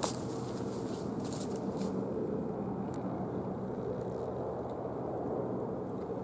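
Helicopter flying overhead, a steady engine and rotor drone with a low hum in it. A few light clicks in the first two seconds.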